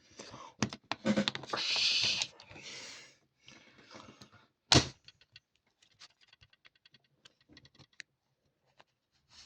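Handling noise from hooking battery leads onto a smoke alarm: rustling and scraping for the first few seconds, a sharp click a little under five seconds in, then scattered faint ticks. The alarm itself does not sound.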